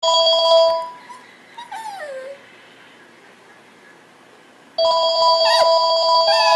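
A cordless phone rings twice, and between and over the rings a Shih Tzu gives short cries that slide down in pitch, sounding like a cat's meow.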